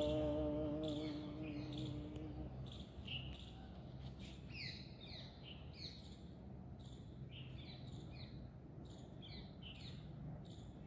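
Small birds chirping repeatedly in short, falling chirps over a faint, steady low background hum. A held tone of background music fades out in the first two seconds or so.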